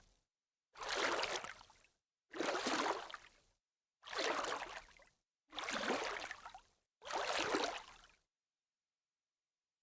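Water splashing in five separate splashes, about one every second and a half, each starting sharply and fading out, then silence near the end.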